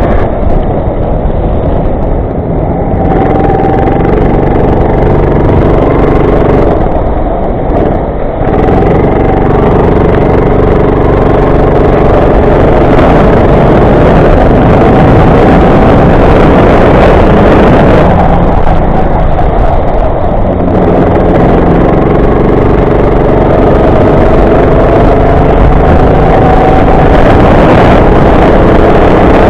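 Go-kart engine heard close up, running hard at high revs; three times the revs drop away and then climb again as the kart slows and accelerates.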